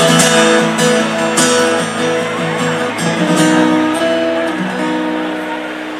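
Acoustic guitar strummed live as a solo instrument, chords ringing with regular strokes and gradually getting softer toward the end.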